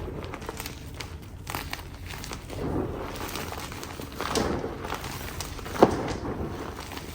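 Blue and yellow chalk being crushed, with repeated gritty crunches and crumbling crackles. A sharp crack about six seconds in is the loudest.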